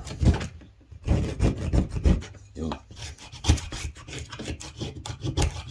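A piece of wood being scraped over the small stamped-metal grater of a Zippo 7-in-1 fire-starter multi-tool in repeated strokes, shaving off wood as tinder.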